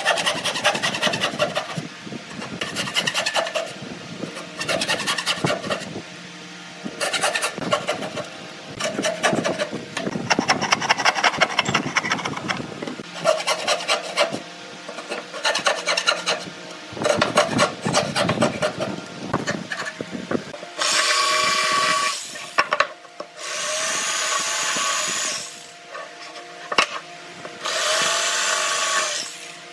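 Hand saw cutting kerfs into the end of a pine board in bursts of rapid back-and-forth strokes with short pauses. About two-thirds of the way through, an electric jigsaw takes over, running in three bursts of about two seconds each as it cuts the board.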